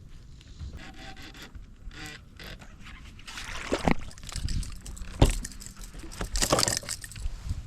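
Irregular knocks, scrapes and rustles of handling and movement in a small fishing boat, with a few sharper thumps in the second half.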